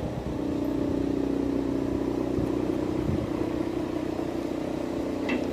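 A steady motor hum holding one pitch.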